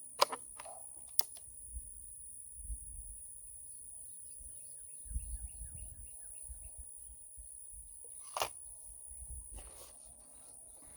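Outdoor ambience with a steady high insect whine. There is a sharp click about a quarter second in, a smaller one about a second in, and another sharp click with a short ring later on. In the middle, a bird sings a quick run of repeated short notes, about four a second.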